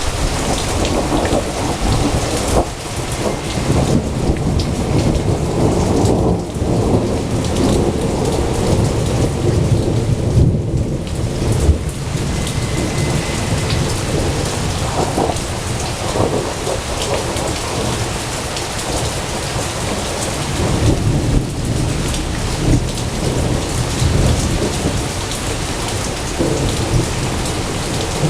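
Thunderstorm: steady rain with rolling thunder that swells and fades several times.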